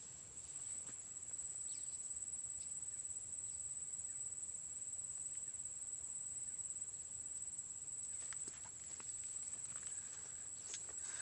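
Steady high-pitched drone of insects, with a few faint scattered clicks.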